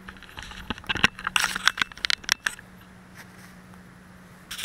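Handling noise close to the microphone: a quick run of clicks, scrapes and rustles with one louder knock about a second in, and a shorter burst of rustling near the end.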